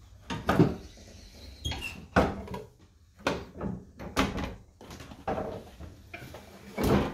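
Footsteps on wooden stairs and along a hallway: a run of uneven thumps and knocks, about one or two a second, with the loudest near the end.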